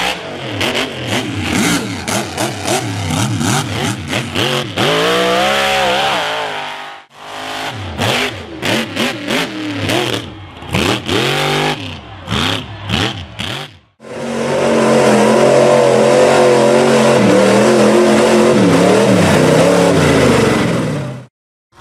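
Big lifted trucks' engines revving hard in a run of short clips: throttle rising and falling, then a stretch of rapid on-off bursts, then a mud truck's engine held at high revs for about seven seconds while its tyres churn mud, cutting off suddenly near the end.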